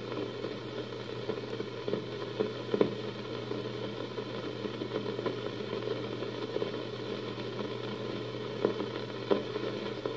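Room tone: a steady hum and hiss with a few faint clicks.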